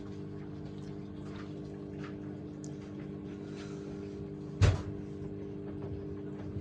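Asko washing machine's drum turning the drained, wet load ahead of its first spin, the motor giving a steady hum with faint swishes of tumbling laundry. A single heavy thump comes about four and a half seconds in.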